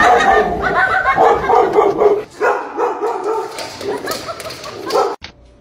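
A dog barking repeatedly and loudly, with a brief break about two seconds in, cutting off suddenly just before the end.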